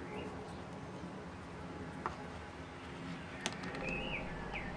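Quiet handling of small wooden blocks: a couple of light clicks as the wood segments are picked up and set down on the board, over a low room hum, with a bird chirping faintly near the end.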